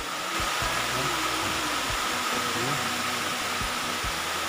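Steady rushing of a forest stream running over rocks and a small waterfall, with faint voices in the distance.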